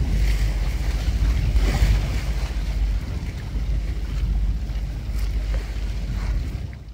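Wind buffeting the microphone over waves washing on open water. It fades out near the end.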